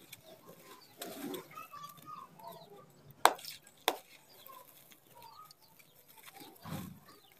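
Dry red dirt clumps crunching and crumbling in the hands, with gritty rushes as the dirt pours back onto the pile. Two sharp snaps come a bit over three seconds in, the second about half a second after the first.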